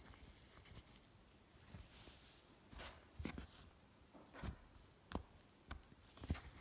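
Slime being squeezed and poked by hand, making irregular soft squelches and sharp little pops. A handful of louder pops come in the second half.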